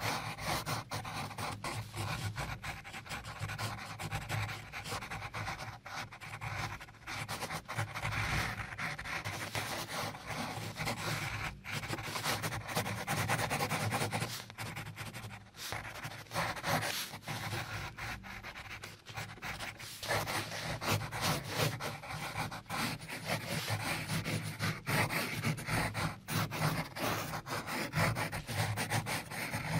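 Pencil shading on drawing paper: quick back-and-forth strokes scratching on the paper, with a few brief pauses between runs of strokes.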